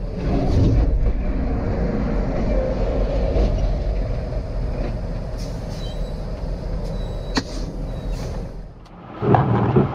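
Steady low rumble of a road vehicle's engine and road noise, with a sharp click about seven seconds in and a short louder burst near the end.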